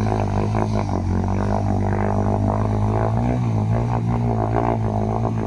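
Motorcycle engine running at steady revs, a continuous low drone, as the bike is walked through deep flood water. The engine is held running so it does not stall: if it stops in the water it will seize.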